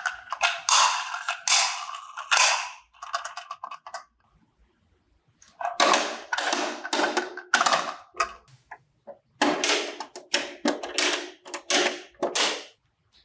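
Slime squish sounds: short, sharp squelches in quick succession, in three runs with brief pauses between.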